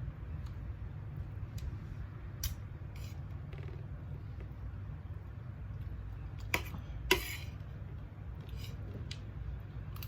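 Spoon and fork clinking against a plate a few times during a meal, the two loudest clinks close together past the middle, over a steady low hum.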